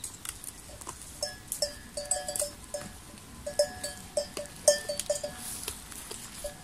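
Bells on grazing goats and sheep clanking irregularly as the animals move, many short ringing clinks at about the same pitch.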